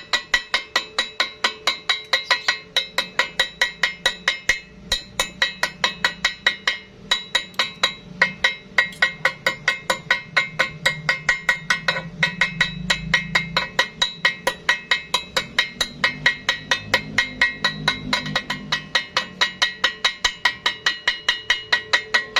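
A hammer striking metal over and over, about four blows a second, each blow leaving a bright metallic ring, with a few short breaks.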